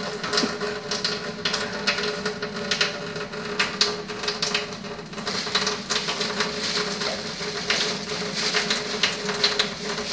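Thin stream of filtered water from a countertop carbon filter's spout running into a stainless steel sink, a steady, irregular crackling spatter.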